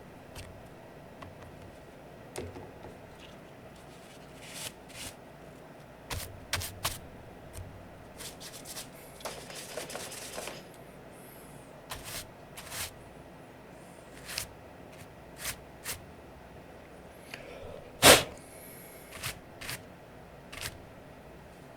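Hands cleaning an Aula F99 Pro mechanical keyboard with its keycaps removed: scattered small plastic clicks and taps, a short stretch of scrubbing about halfway through, and one louder knock near the end.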